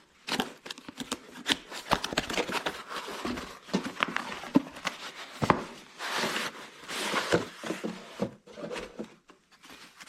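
Cardboard box being opened and its packaging handled: irregular rustling and scraping with many small knocks and clicks.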